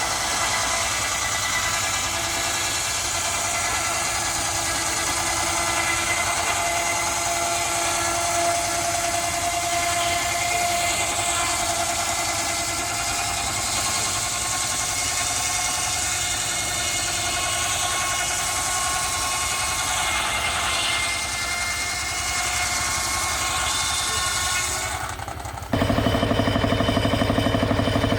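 Machinery engine running steadily, with several held tones over a rough noise. Near the end it cuts abruptly to a louder engine with a fast, even low beat.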